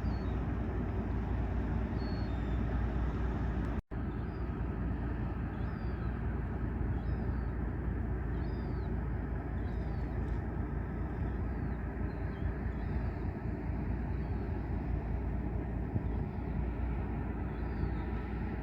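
Steady low engine rumble of a passing ship, with a small bird chirping repeatedly over it. The sound cuts out briefly about four seconds in.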